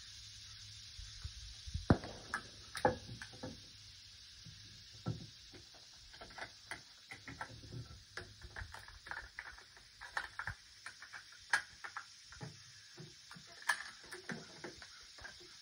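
A string of irregular light clicks, taps and knocks, like gear being handled close to the microphone. The sharpest knock comes about two seconds in, over a faint steady hiss.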